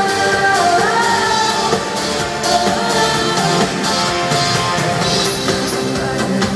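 Pop song performed live in concert: a female lead vocal holding notes and sliding between them over the band's backing.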